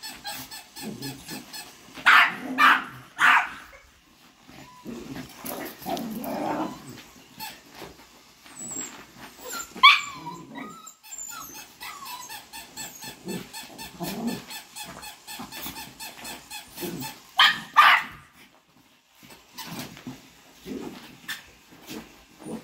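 Small dogs barking during play: three sharp barks about two seconds in and two more near the end, with lower play growling in between.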